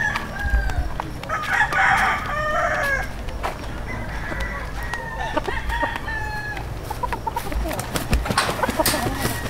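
Gamecock roosters crowing again and again in drawn-out calls, with some clucking between.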